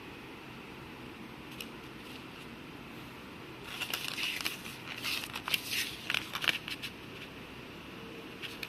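Packaging crinkling and crackling as it is handled, with sharp clicks, for about three seconds in the middle, over a steady low hiss.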